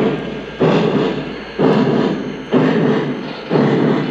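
Onboard sound system of a Lionel Vision Line Union Pacific Challenger O-gauge model steam locomotive playing steam exhaust chuffs at a slow, steady beat of about one chuff a second, each sharp at the start and fading away.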